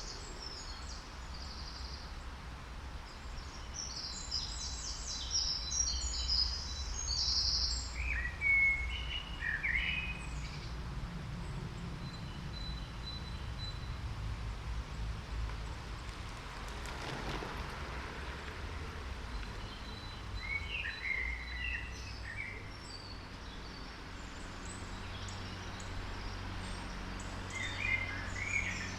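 Woodland birdsong: several birds singing short, chirping phrases, some high and some lower, over a steady low background rumble.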